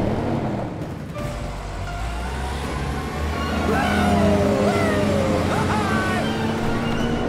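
Cartoon car engine sound effect running steadily, with a low rumble, under background music.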